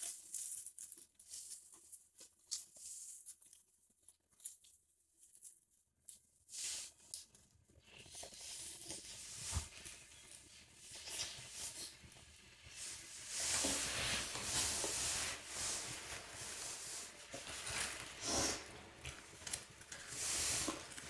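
Eating pizza close to the microphone: a few soft mouth clicks at first, then from about a third of the way in, chewing and the rustling and crinkling of paper plates and a paper napkin, loudest around the middle.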